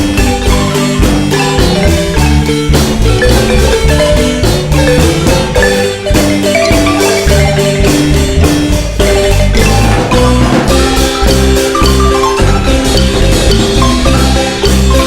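Marimba band playing a lively dance tune: quick mallet notes over a strong bass line.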